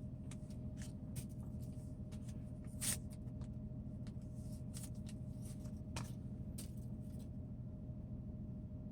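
Soft rustling and small clicks of a wet wipe being handled and rubbed over a phone's glass screen, over the steady low hum of a generator.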